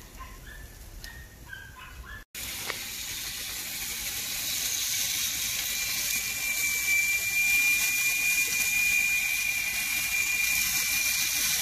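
Cicadas buzzing in a dense, high-pitched drone that builds over several seconds after a brief dropout, with a steady thin whine running through it. Before the dropout there are a few short chirps.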